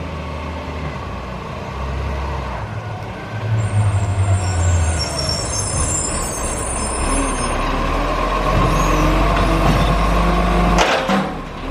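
Garbage truck's diesel engine running, swelling in level a few seconds in, with faint high squeals over it. Near the end comes a short burst of hiss, like an air brake releasing.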